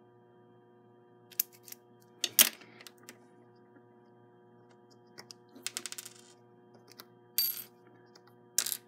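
Scattered small clicks, metallic taps and brief scrapes of hands handling a slot-car pancake armature and small metal parts on an aluminium fixture, including a quick rattle of light ticks about halfway through. A faint steady electrical hum runs underneath.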